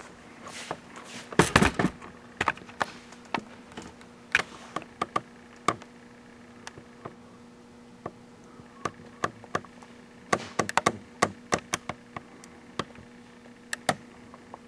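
Irregular knocks, taps and clicks of a metal gumball machine being handled and turned, with a louder cluster about one and a half seconds in, over a faint steady hum.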